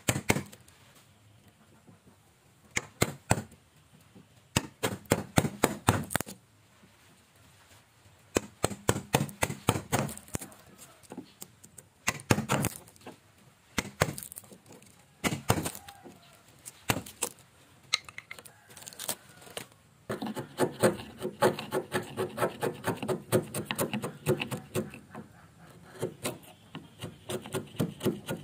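A steel wood chisel cuts into a timber beam, splitting and splintering the grain in bursts of sharp cracks with short pauses between them. A longer, denser run of cracking fills the last third.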